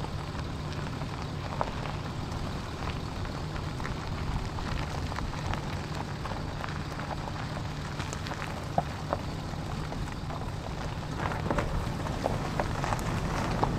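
Steady rain: an even hiss with scattered light drop ticks over a low steady rumble, growing a little louder near the end.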